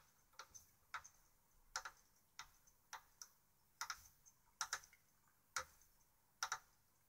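Light metallic clicks of a 3 mm Allen key in the head of the bolt that holds a custom bolt handle on an Air Arms S400 air rifle, as the key is turned by hand to run the bolt in. There are about one or two clicks a second, some in quick pairs, while the bolt is still not tight.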